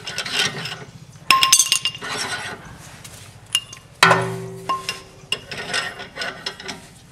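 Ratchet rasping and clicking as the rear brake caliper bolt on a Nissan X-Trail is tightened, with two sharp metallic clinks of tools on metal: one about a second and a half in and one about four seconds in, the second ringing briefly.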